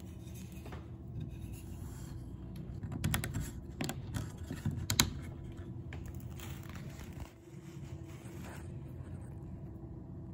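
Light handling noise: scattered scrapes and a cluster of sharp clicks and taps about three to five seconds in, over a low steady hum.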